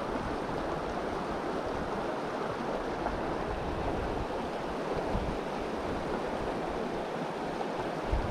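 Shallow river water running steadily over rocks, with irregular low rumbles of wind buffeting the microphone.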